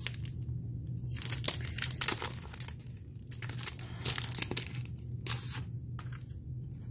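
Clear plastic stamp packaging crinkling and rustling in irregular crackles as a stamp sheet is handled and slid out of its cellophane sleeve.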